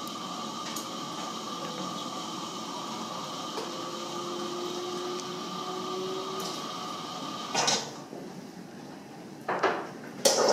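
Carimali automatic coffee machine running with a steady whine and hiss, which stops about eight seconds in. Several sharp clunks and knocks follow near the end.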